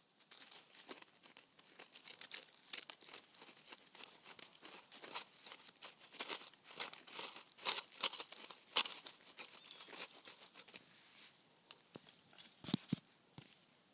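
Dry leaves rustling and crackling in irregular bursts, over a steady high-pitched chirring of crickets.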